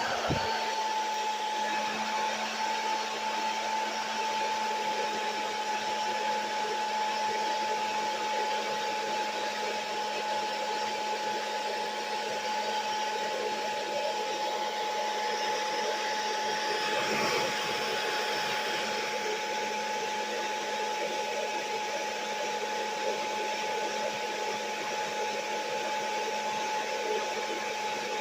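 Small electric appliance motor running steadily, with a constant whine over rushing air, as from a hair dryer or vacuum, and a brief change in the sound about two-thirds of the way through.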